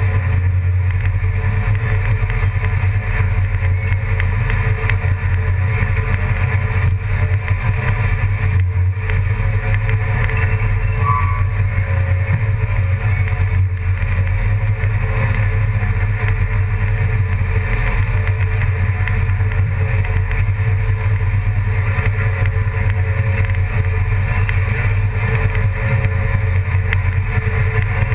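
A steady, unchanging engine drone with a strong low hum.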